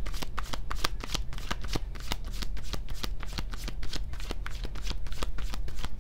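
Tarot deck being shuffled by hand between draws: a quick, unbroken run of crisp card clicks, many a second.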